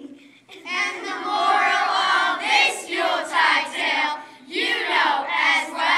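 A group of children singing together, starting about half a second in, in two phrases with a short break about four and a half seconds in.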